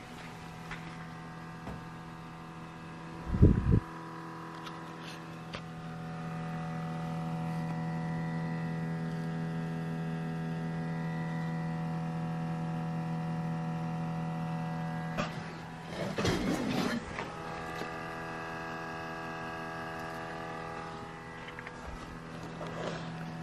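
Parked 2019 Subaru Crosstrek humming steadily with the engine off: the fuel/emissions system running its periodic self-test. The hum grows louder for several seconds in the middle, with a single thump about three and a half seconds in and some rustling around sixteen seconds in.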